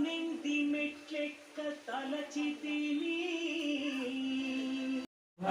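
A voice singing a devotional chant to Lord Ayyappa in long, drawn-out held notes, phrase after phrase. It cuts off abruptly about five seconds in.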